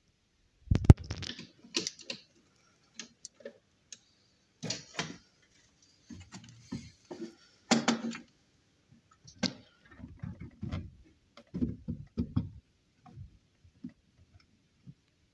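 Irregular clicks and knocks of hard plastic being handled: a plastic cover being fitted down over a plastic electronics housing, with the loudest knock about a second in.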